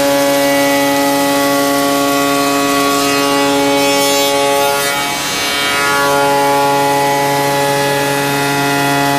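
Spindle of a Busellato Jet Optima C21 CNC machining centre, with its steady high whine, routing a wooden interior door. The tone shifts and the sound dips briefly about five seconds in, then steadies again.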